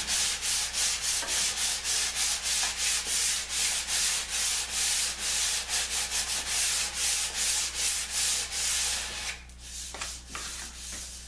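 Sandpaper rubbed back and forth by hand on the end of a curved wooden half-ring, about three strokes a second, the last grit in a run that ends at 220. The strokes stop about nine seconds in, leaving a few lighter rubs.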